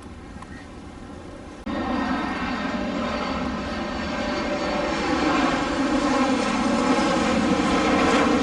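Jet engines of a Boeing 737 MAX 8 (CFM LEAP-1B turbofans) on landing approach, a steady engine hum with a whining tone. The sound cuts in abruptly about two seconds in and keeps getting louder as the aircraft comes closer.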